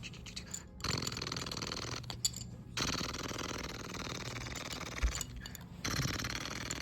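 A child making a rumbling truck-engine noise with his mouth, a buzzy raspberry-like drone that comes in three stretches with short breaks between them.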